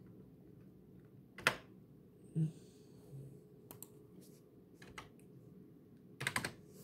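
Quiet, scattered computer keyboard key presses, a few single clicks and then a quick run of several near the end, with one short dull low thump a little past two seconds in.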